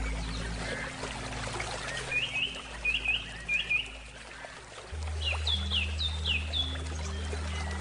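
A small songbird chirping in two quick runs of short, sharp notes, over the steady rush of a flowing stream and the low sustained tones of soft handpan music, which shift to a new note about five seconds in.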